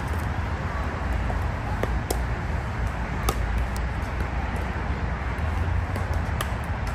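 Pickleball paddles striking a hard plastic ball: about five sharp, irregular pops, the loudest a little past three seconds in, over a steady low rumble.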